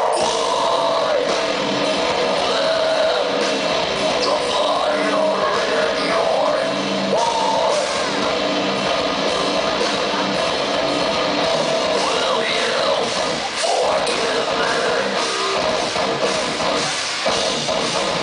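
A rock band playing live: electric guitars and drum kit, with sung and shouted vocals over them, loud and steady throughout.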